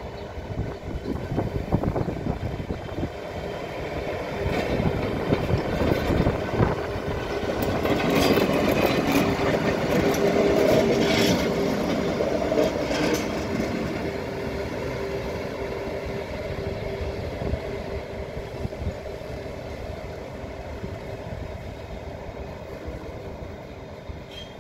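Class 181 electric locomotive running light past, with a steady hum and its wheels clicking over the track. It grows louder as it passes, loudest around the middle, then fades as it draws away.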